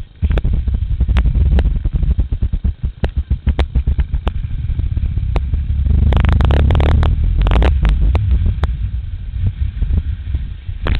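Wind buffeting the microphone of a knee-mounted GoPro as a skier runs downhill, a heavy rumble, with skis scraping and chattering over hard-packed snow and many sharp clattering knocks. A longer, louder scrape of the skis comes a little past the middle.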